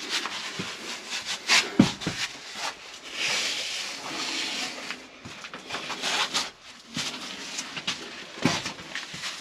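Scuffing and scraping of shoes and clothing against sandy rock as people clamber through a cave, with a few scattered knocks.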